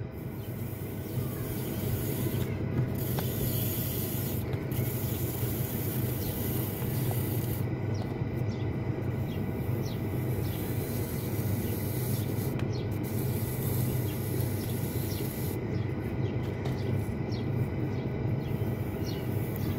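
Curved scraper rubbing over the base of a partly dried clay cooking pot as it turns on the potter's wheel, shaving off the excess clay: a steady scraping under a steady low hum.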